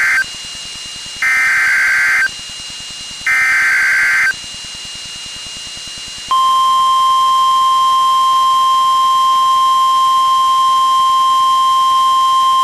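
Emergency Alert System SAME header from NOAA Weather Radio: warbling data-tone bursts about a second long and a second apart. About six seconds in comes the single steady warning alarm tone, which signals that a new warning is about to be read.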